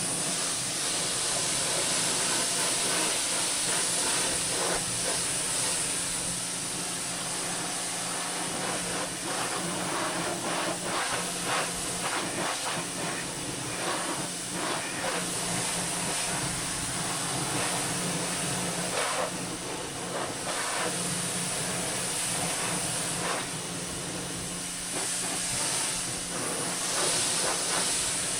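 Pressure washer spraying a jet of water onto an ATV: a steady hiss over a steady motor hum, the spray sound shifting as the jet moves across the machine.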